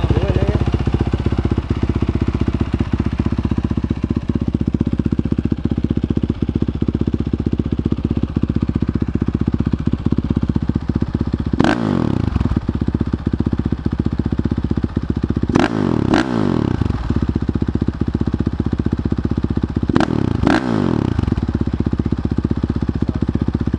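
2017 Honda CRF450R's single-cylinder four-stroke engine idling steadily through a dual Yoshimura exhaust, with quick throttle blips: one about halfway through, then two pairs of fast revs about four seconds apart that drop straight back to idle.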